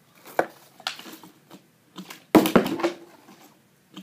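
Plastic water bottle with water in it being flipped and knocking against a cardboard cereal box and a hardwood floor: a couple of light knocks early on, then a louder cluster of knocks about two and a half seconds in as the bottle lands and tumbles.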